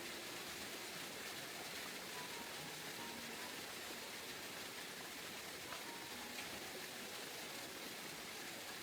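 A steady, even rush of water, with a few faint short tones over it.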